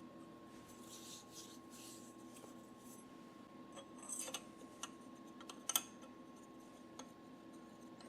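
Small metal parts and hand tools being handled at a metal lathe: a soft scraping, then a few sharp metallic clicks and taps, over a steady faint hum.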